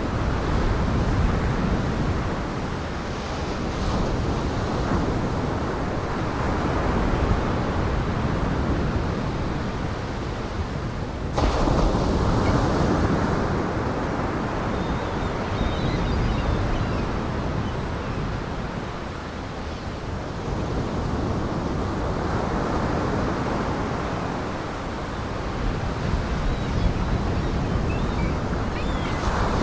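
Heavy surf breaking under gale-force wind: a steady wash of waves that swells and fades, with wind gusting over it. The sound changes abruptly about eleven seconds in.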